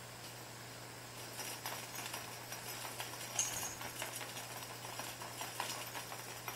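A cat's paws pattering and scuffing on tatami mats as it pounces after a string toy: a quick run of light taps starting about a second in, with one sharper click near the middle.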